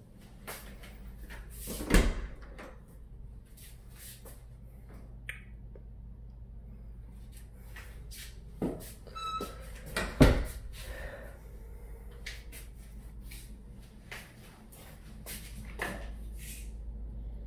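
Interior doors and cupboard doors being handled and shut, with two sharp thumps, one about two seconds in and the louder one about ten seconds in. A brief squeak comes just after nine seconds, and light knocks and handling noises fall in between.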